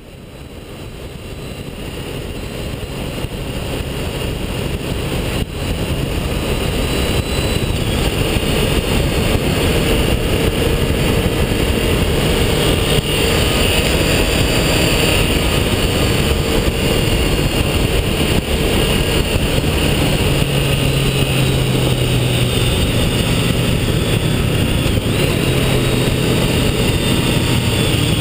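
Motorcycle riding along a road, heard from a camera mounted low on the bike: engine drone mixed with wind and road rush. It fades in over the first several seconds, and a steadier engine tone comes through about two-thirds of the way in.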